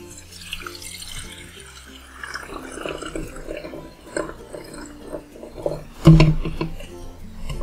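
Vinegar being poured from a bottle into a flask, a running, splashing stream of liquid, with a thump about six seconds in.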